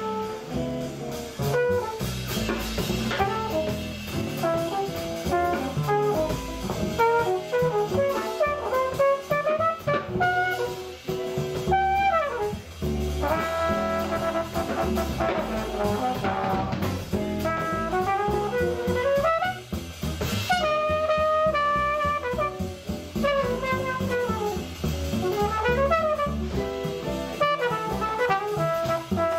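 Live jazz quintet: a trumpet takes a solo of quick rising and falling runs over double bass and drum kit.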